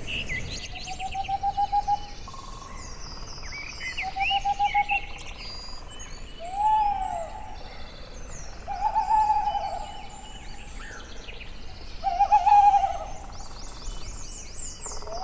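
An owl hooting five times, a call every two to three seconds: some calls are quick stuttering runs of notes, others a single note that rises and falls. Short, high chirps go on around the hoots.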